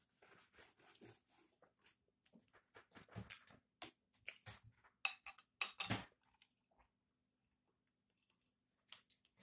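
Crispy fried pork skin being chewed, an irregular run of crunches, loudest around five to six seconds in.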